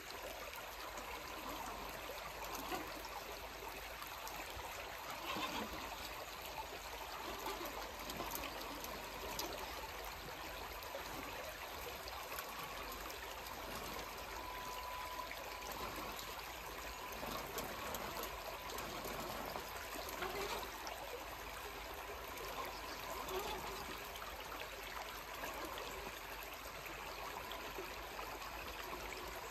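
Shallow creek water trickling over rocks, a steady gentle rush.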